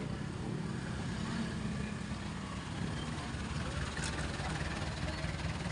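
Busy market-street ambience: a steady low engine rumble with indistinct voices of people around.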